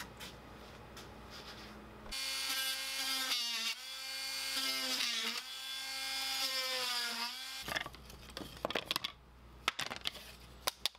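Cordless oscillating multi-tool cutting through the small tabs that hold dovetail box panels in a plywood sheet: it starts about two seconds in and whines steadily for about five seconds, its pitch sagging twice as the blade bites. After it stops come a few light clacks of the plywood pieces being handled.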